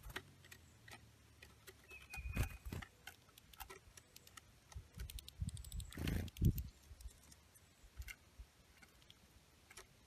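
Irregular taps and clicks of birds feeding at a wooden platform feeder, a hairy woodpecker pecking at the log and seed, with a cluster of soft thumps around the middle and one short high chirp about two seconds in.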